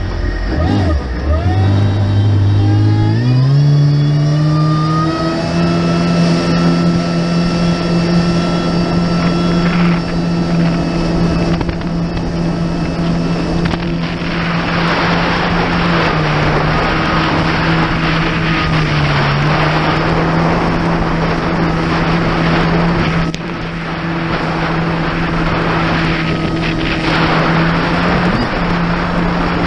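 Kawasaki Ultra 300X jet ski's supercharged four-cylinder engine accelerating from a standstill, its pitch rising over the first few seconds, then running steady at speed with a couple of brief dips. A hiss of wind and water spray builds from about halfway through.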